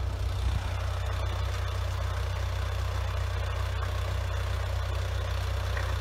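Engine running steadily with a low, even hum.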